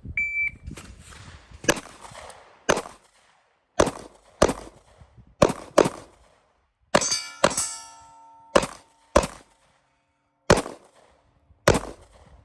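A shot-timer beep, then twelve pistol shots fired in rough pairs over about eleven seconds. Around the middle, a pair of shots is followed by a metallic ringing that lingers.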